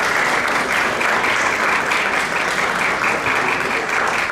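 Audience applauding steadily: many hands clapping at once in a dense, unbroken patter.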